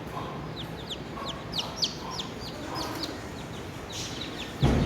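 Newly hatched chicks peeping: short high chirps that slide down in pitch, a few a second. A sudden thump near the end.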